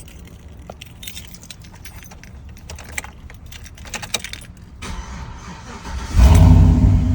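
A bunch of keys jangling and clinking for several seconds, then the old truck's engine is started about six seconds in, catches at once and settles into a steady run.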